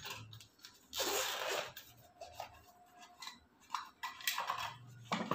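Sunglasses being taken out and handled: a short rustle about a second in, then scattered light clicks and taps, the loudest near the end.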